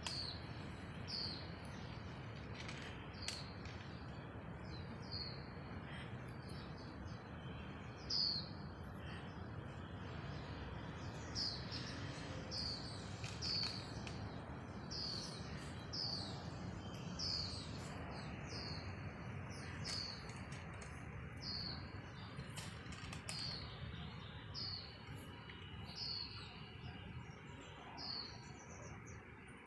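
A bird calling over and over, a short high note that falls in pitch, about once a second with a few pauses. Beneath it is a steady low background noise.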